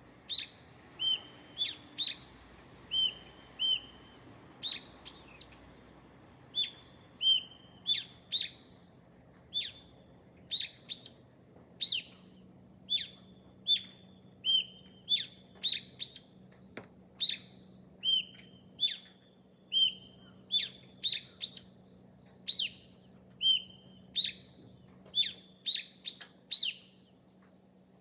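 A bird calling over and over in short, sharp chirps, one to two a second, each a quick falling note.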